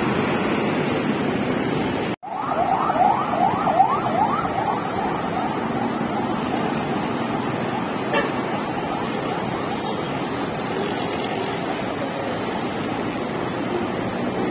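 Steady traffic noise from heavy road traffic, mostly motorcycles and cars passing. The sound cuts out for an instant about two seconds in. Right after that, an electronic siren yelps in a run of quick rising sweeps for about two seconds.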